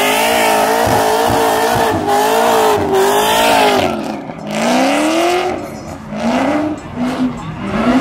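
Cadillac CTS coupe doing a smoky burnout: the engine is held at high revs with the rear tyres spinning and squealing for about four seconds. The driver then lifts briefly and the revs climb again in several short rises.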